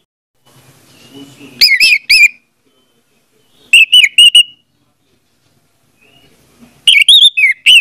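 Orange-headed thrush singing: three short bursts of loud, quick whistled notes, each burst under a second, spaced about two seconds apart.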